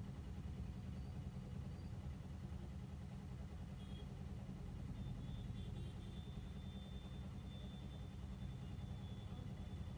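Faint, steady low hum of a running motor, with a thin high tone joining about five seconds in.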